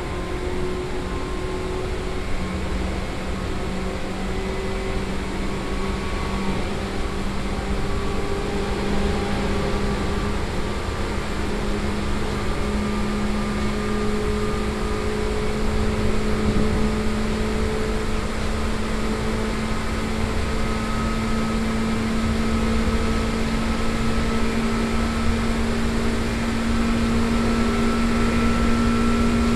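Seibu 2000 series electric train running, heard from inside the car. The field-chopper DC traction motors and gears hum, and the hum rises slowly in pitch as the train gathers speed over the rumble of wheels on rail. Motor revolutions are high for the speed, which the recordist puts down perhaps to freshly reprofiled wheels.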